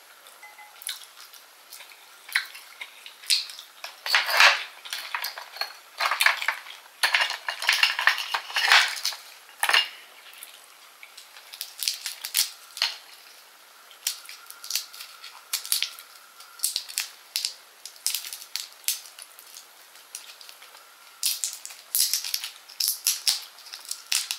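Close-miked shellfish eating and handling: an oyster shell clicking and clinking as the grilled oyster is eaten, then the crackle of cooked shrimp shells being peeled by hand. The sounds come as irregular sharp clicks and crackles, busiest in the first half.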